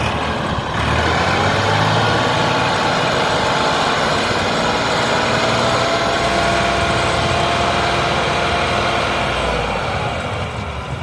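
Heavy diesel engine running loudly and steadily, easing off about ten seconds in.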